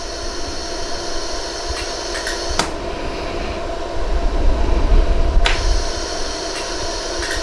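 Jewelry laser welder running with a steady hum, with a few sharp ticks of single laser pulses firing on the ring's prongs, the two clearest about two and a half and five and a half seconds in. A low rumble swells around the middle.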